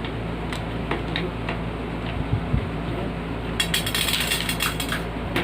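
Light clicks and clinks of small hard parts and tools being handled during work on a box fan, with several scattered clicks early on and a quick cluster of clinks in the second half, over a steady low hum.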